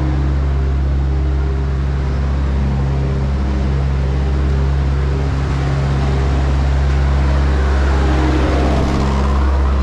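Diesel engine of a skid-steer loader running steadily at close range, growing a little louder and noisier as it draws alongside near the end.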